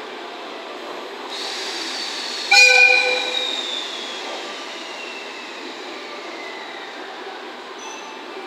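Electric locomotive air horn sounds one short blast about two and a half seconds in, over steady train equipment noise, as the EF65 prepares to pull away. A faint whine falls slowly in pitch behind it.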